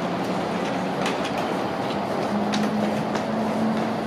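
Five-section low-floor tram standing at a stop with its doors open, its onboard equipment giving a steady hum that steps up slightly in pitch about two seconds in, over a steady background din. Scattered clicks and taps from passengers' footsteps and rolling suitcases.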